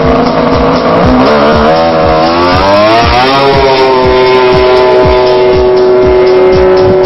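Polaris snowmobile engine launching off the start line. It idles steadily, then the revs climb steeply for about two seconds and hold at a steady high pitch as the sled pulls away.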